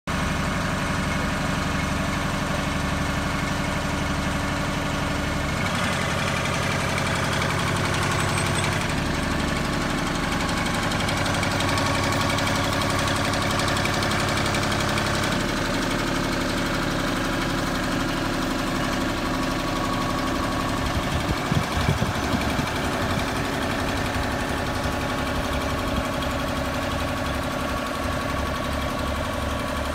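Engine of an articulating boom lift running steadily, its sound shifting several times as the boom is worked and the basket is raised. A brief spell of louder clunks comes about twenty-one seconds in.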